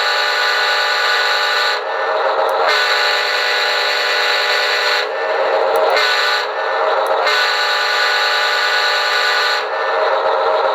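Multi-chime diesel locomotive air horn sound effect from a QSI Maxx Traxx sound panel, blowing a chord in the pattern long, long, short, long, with another blast starting near the end. This is the standard grade-crossing signal. It plays over the steady running sound of the locomotive.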